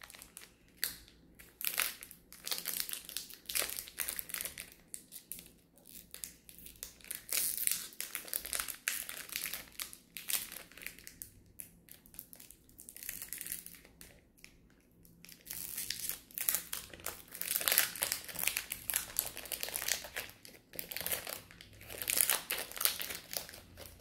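Foil booster pack wrapper crinkling as it is handled and torn open by hand, in irregular bursts with a few short pauses.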